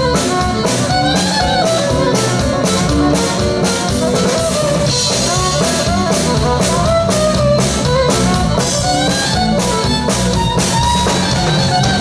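Live country band's instrumental break between verses: a guitar-led melody over a drum kit keeping a steady beat.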